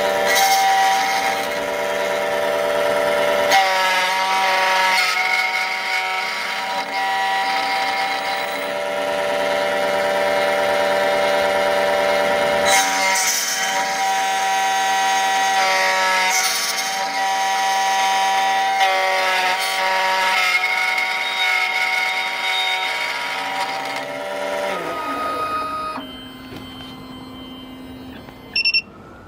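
SEC-E9 key machine cutting a metal Nissan key: the cutter spindle runs with a steady whine of several tones, the pitch pattern shifting every few seconds as the key is traced along the cutter. About 25 seconds in the whine falls in pitch as the motor winds down, and the cut is finished.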